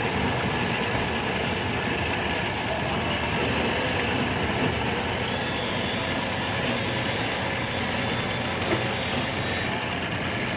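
Steady running of boat outboard motors at low speed, an even hum with no clear changes.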